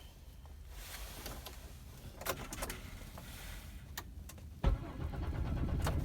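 A few sharp clicks, then about two-thirds of the way in a 2002 Chevy Monte Carlo SS's 3.8-litre V6 is cranked over by its starter for about a second and a half without catching: it cranks but won't start, even after a new starter, fuel pump and fuel pressure regulator.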